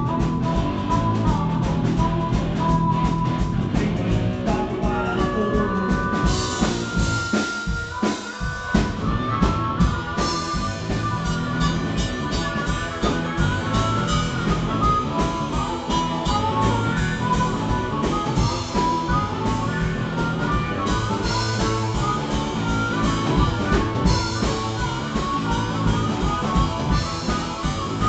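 Live rock band playing electric guitar and drums, recorded from the crowd, with a short break in the low end about eight seconds in before the full band comes back in.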